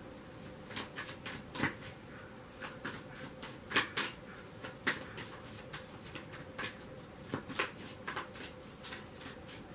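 A deck of tarot cards being shuffled by hand: soft, irregular snaps and rustles of the cards, a few every second.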